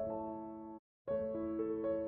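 Soft background piano music with held chords; the sound cuts out completely for a moment near the middle, then the music picks up again.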